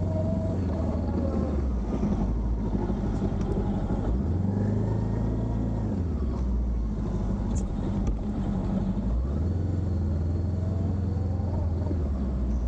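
Motorcycle engine running at low speed while ridden slowly. Its note rises and falls twice as the throttle opens and closes.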